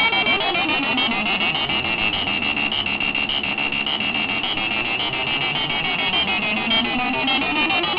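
Breadboard Lunetta-style synth: a 555 timer, stepped through four pitches by a 4017 sequencer, buzzing through a 40106 and 4066 ring modulator. It makes a harsh electronic tone of many pitches at once, with pitches that sweep up and down over a fast, steady stepping pattern.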